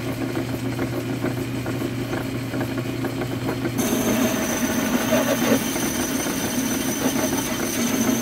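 Metal lathe running steadily with a low hum as it spins a steel part. A thin high whine joins about four seconds in.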